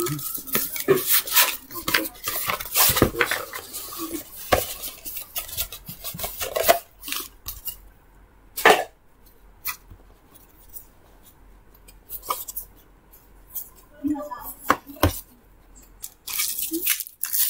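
Cardboard microphone box being handled and unpacked: the box slid out of its outer sleeve and the lid opened, with scraping, rubbing and sharp taps on the desk. Busy handling noise through the first several seconds, a quieter stretch in the middle broken by a few sharp knocks, and more rustling and scraping near the end.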